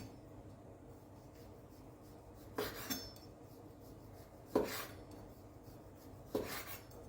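Knife cutting into a firm air-cured pork fillet, three short slicing strokes about two seconds apart.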